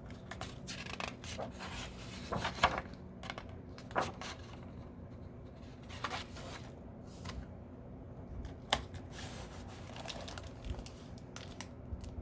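Paper pages of a picture book rustling and being handled, with irregular scrapes and a few sharper taps.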